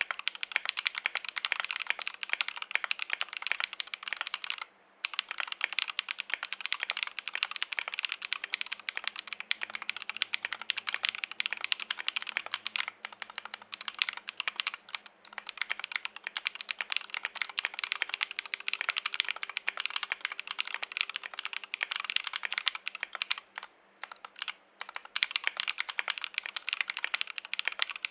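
Fast, continuous typing on a KBDFans Tofu65 mechanical keyboard, with lubed Glorious Holy Panda tactile switches on an aluminum plate in an acrylic tray-mount case. The typing stops briefly about five seconds in and twice around twenty-four seconds.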